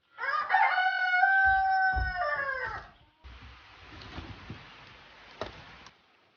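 A rooster crowing once: one long call of about three seconds, held on a steady pitch and dropping at the end. Then a soft steady hiss of rain, with a single sharp tap near the end.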